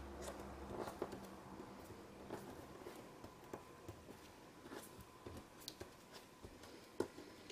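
Faint rustling and soft ticks of paper as hands press and smooth glued card layers flat, with one sharper tick near the end.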